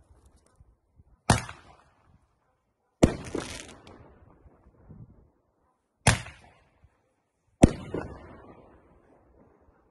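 Fireworks shots from a homemade launcher going off: four sharp bangs a second or two apart, each trailing off, the second one followed closely by another hit.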